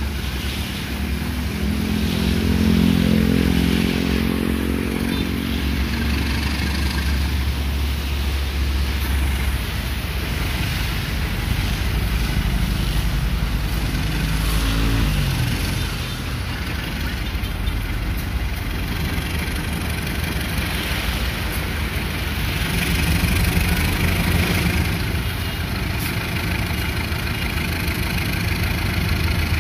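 Diesel-electric locomotive's engine working hard as it pulls slowly up the grade with an empty cement train. The engine note swells a couple of seconds in, shifts in pitch about halfway, and swells again near the end.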